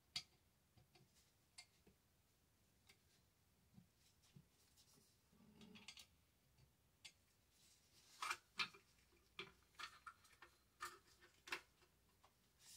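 Faint, scattered clicks and light knocks of a Remington 870 shotgun's receiver and parts being handled and fitted back together by gloved hands, with a busier run of clicks from about eight seconds in.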